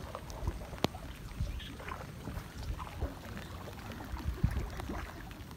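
Light rain falling on a mangrove creek and onto a plastic kayak: scattered, irregular drips and taps over a low, uneven background, with one sharper tap about a second in.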